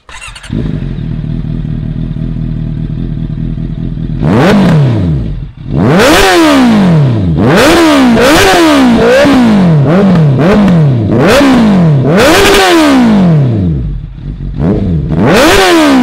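Honda CBR650F inline-four, fitted with an aftermarket stainless-steel slip-on exhaust and bend pipe, starts about half a second in and idles. From about four seconds in it is revved in a quick series of about ten throttle blips, each rising sharply and falling back toward idle.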